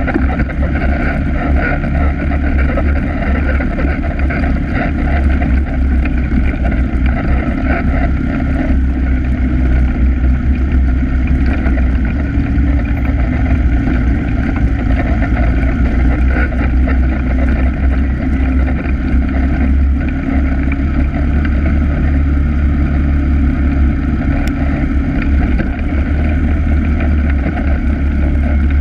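Polaris ATV engine running steadily while riding a dirt trail, picked up by a camera mounted on the machine itself, with a heavy low rumble throughout.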